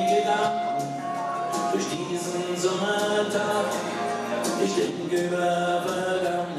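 Live rock band playing a song, with sung vocals over acoustic and electric guitars and drums.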